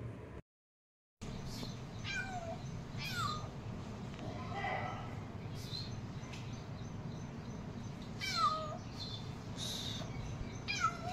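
Young kitten meowing repeatedly: about five short, high meows, each falling in pitch, spread through the clip over a steady low background hum.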